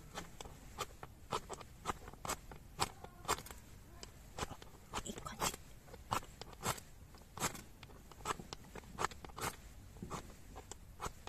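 Ferrocerium rod being scraped in short, sharp rasping strokes, irregular, about two a second, to throw sparks onto wood-shaving tinder for a fire that has not yet caught.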